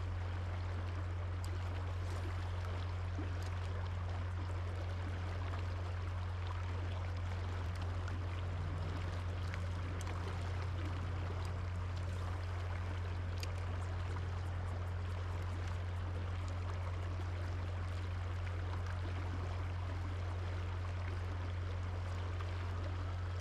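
River water flowing steadily: an even rush of moving water, with a steady low hum beneath it and a few faint ticks.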